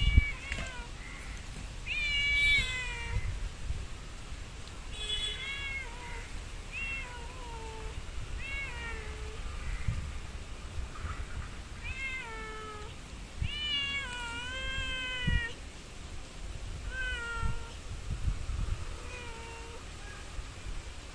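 Domestic cat meowing repeatedly: about ten drawn-out meows a second or two apart, most falling in pitch at the end.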